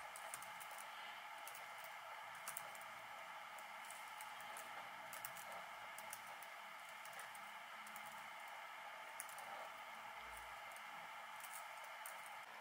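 Light, irregular typing on a laptop keyboard, soft key clicks over a faint steady hiss.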